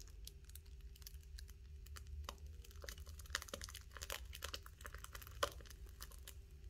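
Faint, irregular crinkling and crackling of a piping bag being squeezed to pipe cream onto a biscuit, with one sharper click about five and a half seconds in.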